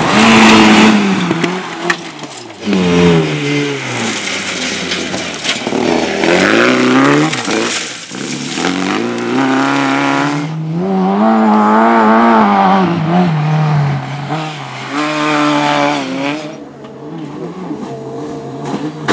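Rally car engine driven hard. Its pitch climbs and falls again and again as the car accelerates, shifts and lifts off, with bursts of rushing noise from tyres or exhaust in the first half.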